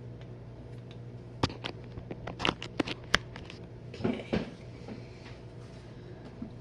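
Jenn-Air dishwasher running mid-wash with a steady motor hum. A quick flurry of sharp clicks and spatters comes about a second and a half in, and a short splashing rush follows at about four seconds.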